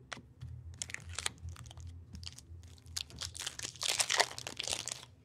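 Plastic wrapper of a hockey card pack being torn open and crinkled, in a run of crackly bursts that is loudest about four seconds in.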